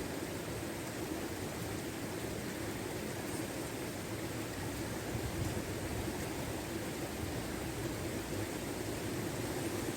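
Steady rushing of a river in flood, an even roar of water with no breaks.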